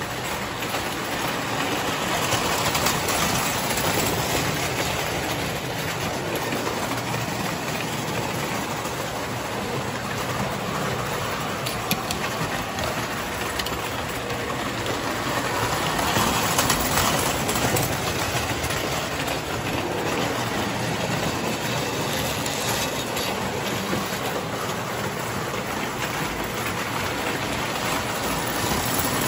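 Three-rail tinplate model trains running around the layout: the locomotive motors whir and the wheels clatter over the track in a steady rumble. It swells briefly a few times and grows louder near the end as a locomotive passes close by.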